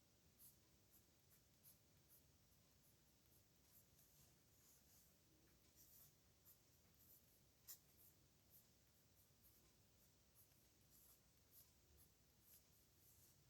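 Faint scratching of a pen on paper as strokes are written, in short irregular scrapes and ticks, with one sharper tick a little past halfway.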